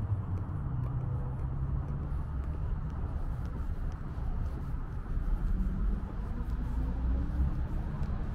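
Street traffic: a steady low rumble of vehicle engines and tyres, with one engine rising in pitch as it speeds up over the last few seconds.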